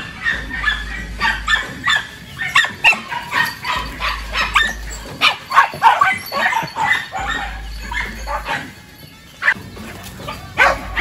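Hunting dogs barking and yipping in quick succession, several sharp barks a second, with a short lull about nine seconds in before a loud bark near the end.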